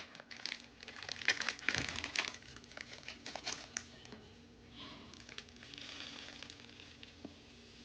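Foil Pokémon booster pack wrappers crinkling as the packs are handled. Quick crackles and rustles fill the first few seconds, then a softer rustle follows.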